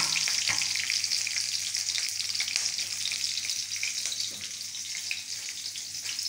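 Chopped garlic and green chillies sizzling in hot oil in a steel kadhai, a steady hiss with a couple of light clicks about half a second in. The sizzle eases slightly after about four seconds.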